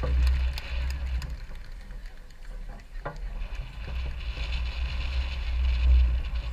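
Wind buffeting the microphone: a low, uneven rumble that swells near the start and again near the end, over faint distant crowd chatter.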